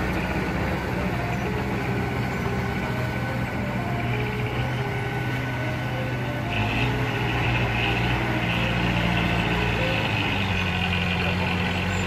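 Diesel engine of a Komatsu crawler bulldozer running steadily as it pushes dirt. From about six and a half seconds, a high, pulsing tone joins in.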